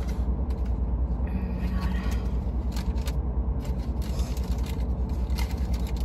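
Steady low rumble inside a car cabin, with scattered soft clicks and smacks of someone chewing food with her mouth closed.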